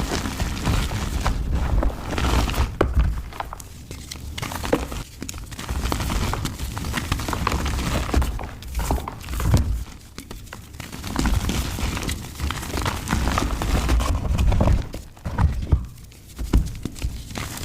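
Dried mud being crushed and crumbled, a dense irregular crunching and crackling with dull thunks, coming in bursts with short pauses between.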